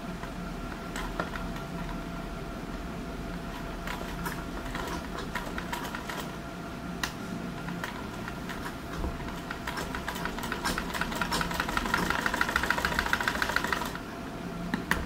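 Industrial sewing machine stitching a seam through fabric: a few scattered single stitches at first, then a fast, even run of stitching from about ten seconds in that grows louder and stops suddenly about a second before the end.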